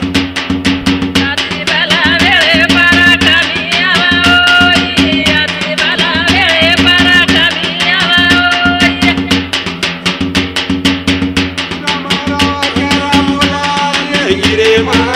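Banjara Holi lengi folk song: women singing together over fast, steady beats of a dapda frame drum, with a steady low drone underneath. The singing runs from about two seconds in to about nine seconds, drops out, and returns briefly near the end while the drum keeps going.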